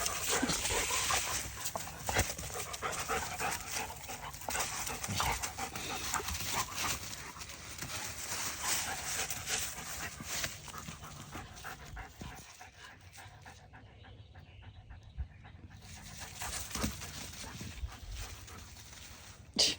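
A dog panting, with many small scuffs and clicks mixed in, busiest in the first half and fading past the middle. A short sharp sound comes just before the end.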